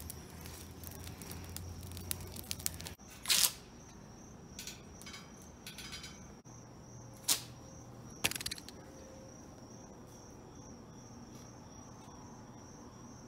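Steady high insect trill of crickets, broken by a few brief sharp swishing sounds.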